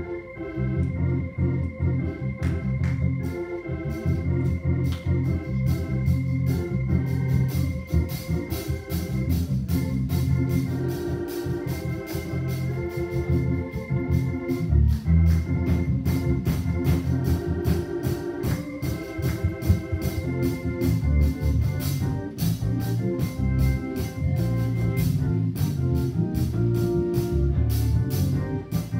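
Gospel music: an organ playing held chords over a strong bass line, with a steady beat of sharp hits that gets busier a few seconds in.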